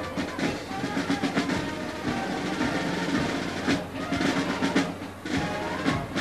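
Parade band music driven by drums: snare drum rolls and bass drum beats over steady pitched instrument notes.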